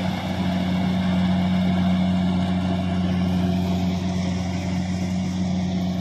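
Kubota DC-70 rice combine harvester's diesel engine running at a steady speed while harvesting, a constant low drone with a hiss above it.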